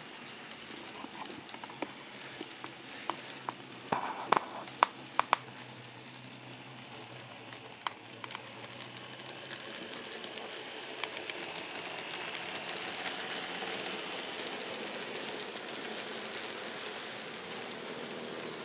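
N-scale model train running past on the layout track: a steady rattling patter of small wheels on rail with a few sharp clicks about four to five seconds in, and a faint high whine. It grows louder in the second half as the locomotives and then the freight cars go by.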